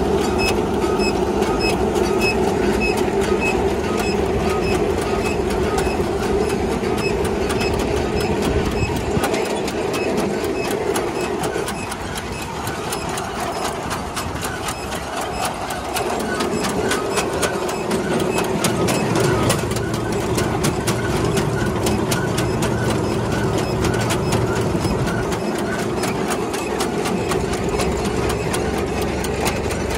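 McCormick-Deering threshing machine running empty on a test run, driven by a long flat belt from a tractor: a steady mechanical whir and rattle of its spinning pulleys, belts and chains, with fast, even clicking throughout.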